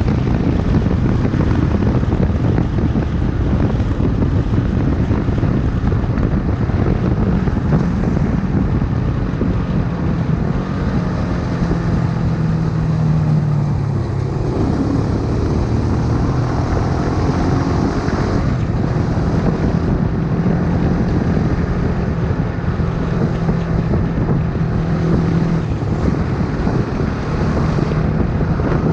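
Honda CBX 250 Twister's single-cylinder engine running while the motorcycle is ridden, with heavy wind noise on the microphone. The engine note holds steady for several seconds at a time and changes pitch about 14 and 18 seconds in.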